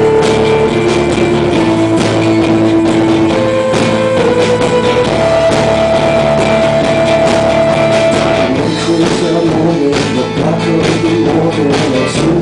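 A live band plays the instrumental opening of a song: an acoustic guitar is strummed under a melody of long held notes that step from pitch to pitch.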